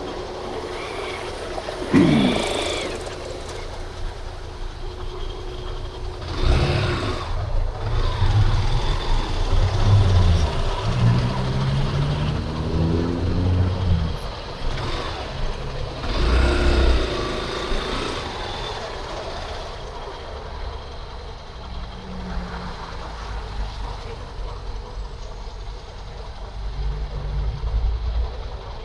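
Yamaha Crosser 150's single-cylinder engine running in city traffic, its revs climbing in steps several times midway as it accelerates through the gears. Passing vehicles swell in and out, and there is a sudden loud noise about two seconds in.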